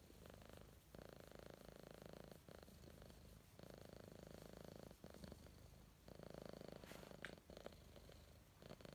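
Domestic cat purring quietly and contentedly while being scratched under the chin, the purr swelling and fading every second or so.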